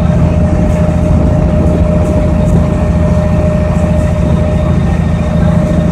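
Boat engine running steadily under way, a heavy low drone with a thin steady whine over it that fades out near the end.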